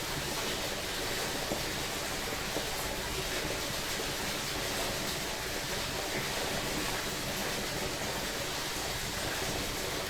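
Water of a creek rushing and splashing steadily over its bed, an even, unbroken wash of sound.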